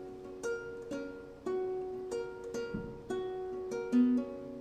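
Nylon-string guitar fingerpicked slowly, single plucked notes about two a second, each left to ring into the next.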